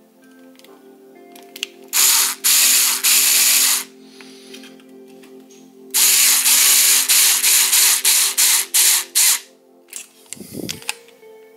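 Ryobi cordless driver driving an M3 screw into a 3D-printer carriage: a run of about two seconds, then a longer run broken into a string of short bursts as the screw is seated. A short low thump follows near the end.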